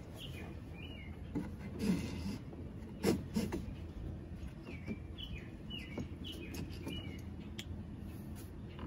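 Small birds chirping again and again in short calls, over a steady low background hum. A few light knocks and handling noises come from the rigging being worked by hand, the loudest about three seconds in.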